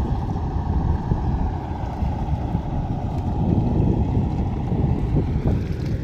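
Wind buffeting the microphone: an uneven low rumble.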